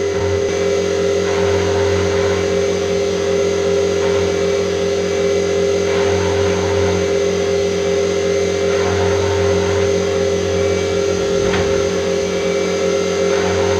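CNC milling machine running, a steady machine hum with a constant pitched whine.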